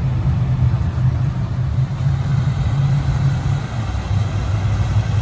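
Motorboat engine running steadily at low speed with a low rumble, dipping slightly in pitch about four seconds in.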